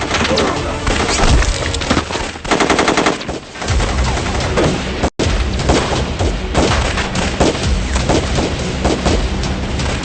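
Battle gunfire: dense rifle and machine-gun shots, with a rapid, evenly spaced machine-gun burst about two and a half seconds in. The sound cuts out for an instant about five seconds in.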